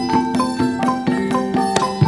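Javanese gamelan music: struck bronze metallophones sounding a melody at about four strokes a second, each note ringing on over the next.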